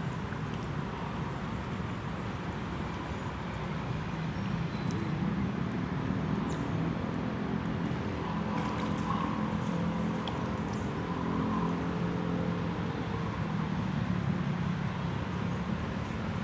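A motor engine running steadily, heard as a low hum under an even rushing noise.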